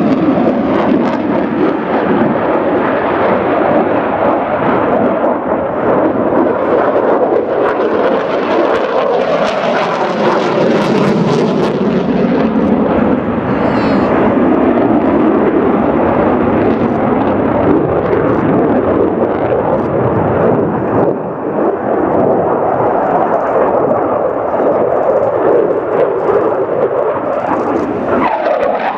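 Military fast jet's engines running loud and continuous, with slow sweeping tones in the roar as the jet moves past.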